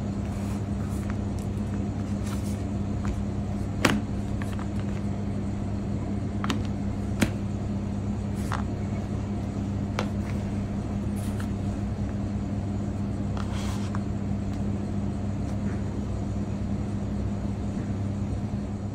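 Light taps and clicks of small items being set down and moved on a tabletop, about seven in all, the loudest about four seconds in, over a steady low hum.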